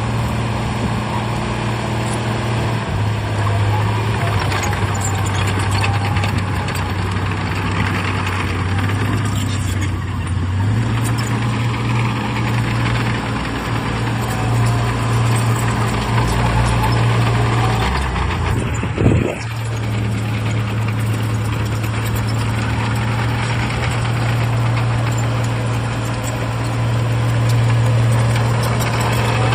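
Diesel engine of heavy earthmoving machinery running steadily, its pitch shifting a little several times. A short sharp sound about two-thirds of the way through is the loudest moment.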